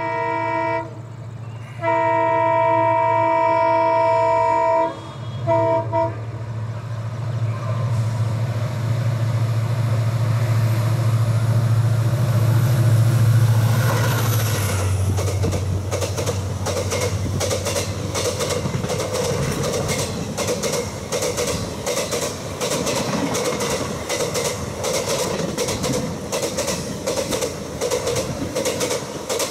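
An EMD WDP-4D diesel locomotive sounds its multi-tone horn: one blast at the start, a longer one about two seconds in, then two short toots. Its engine drone then grows louder and drops in pitch as it passes, about halfway through. After that the coaches roll by with a steady clickety-clack of wheels over the rail joints.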